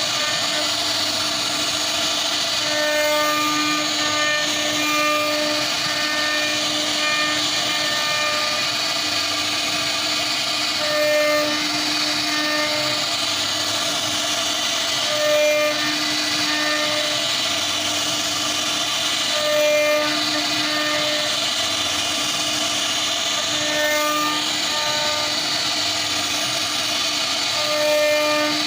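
CNC router spindle running at speed and cutting wood with a steady high whine and hiss. The pitch of the cut strengthens in swells about every four seconds as the bit works along the pattern.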